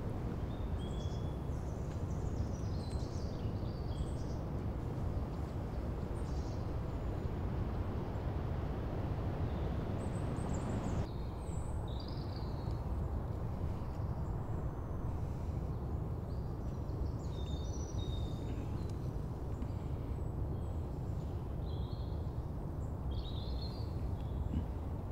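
Outdoor woodland ambience: scattered short bird chirps and calls over a steady low rumble of background noise. The background noise changes abruptly about eleven seconds in.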